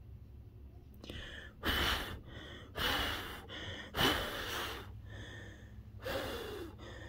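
A person blowing hard with their breath onto a thermostat's temperature probe and heater cartridge to cool them: four strong puffs with quieter in-breaths between them.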